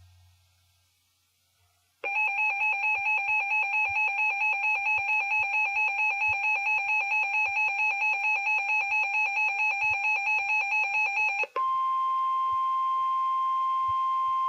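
Weather-radio alert tones: a loud electronic beep pulsing about four times a second for roughly nine seconds, then a single steady tone near 1 kHz for about three seconds that cuts off suddenly. The steady tone is the NOAA Weather Radio warning alarm tone that heralds a warning message.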